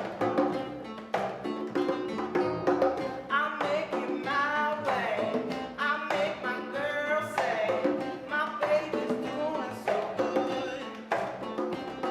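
A band playing a song: guitar and percussion keeping a steady beat, with a singing voice coming in over them.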